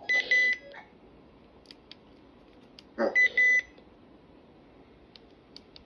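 RadioShack 12-522 weather alert radio beeping twice, about three seconds apart, each time a short run of high beeps, with faint clicks of its buttons being pressed in between. The radio's button lock is on.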